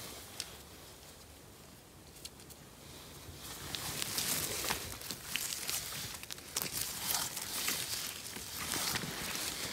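Rustling and crackling of moss, dry pine needles and low forest plants as a gloved hand rummages through them and picks mushrooms. It starts about three seconds in and goes on in uneven bursts with small sharp crackles.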